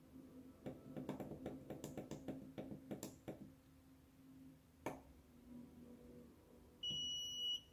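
A quick run of small push-button clicks on a nixie clock as the alarm minutes are stepped up, then a single louder click. Near the end the clock's buzzer gives a short, steady, high beep of under a second, the signal that the alarm has been set.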